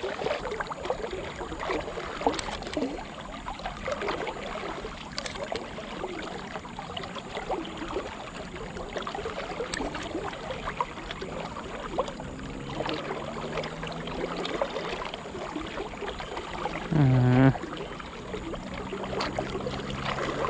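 Shallow river water running and rippling around a wading angler's legs. About seventeen seconds in there is a short, loud, low voice sound.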